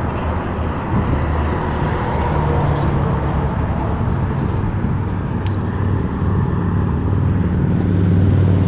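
Road traffic passing on the bridge: a steady low rumble of vehicles that grows a little louder near the end.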